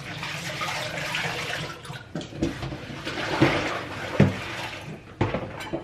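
Water running from a kitchen tap into the sink, with a few knocks of dishes and pots being handled during the washing-up.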